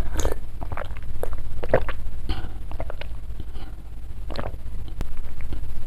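A person drinking close to the microphone: separate gulps and swallows with small mouth clicks, about one every half second to second, over a steady low hum.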